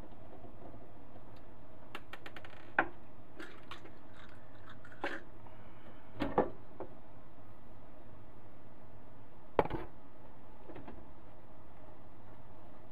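Handling sounds of taking a radio receiver's metal cabinet cover off: a quick run of small screwdriver clicks, then scattered knocks and scrapes as the cover is worked loose and lifted off the Realistic DX-160 chassis.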